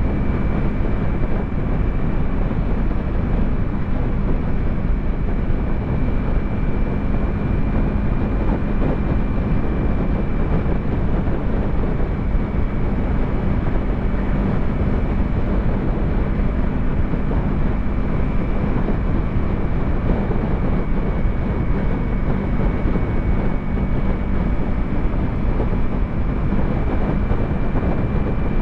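Yamaha YZF-R3's parallel-twin engine running at a steady, unchanging pitch while cruising, with wind rushing over the microphone.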